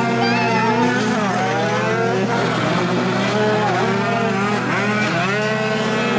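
Tuned two-stroke racing scooter engines revving hard, several at once, their pitch sweeping up and falling again over and over.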